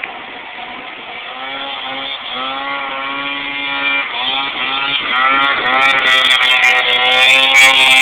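Snowmobile engine running at high revs, its pitch rising and dipping again and again, and growing louder as it comes nearer.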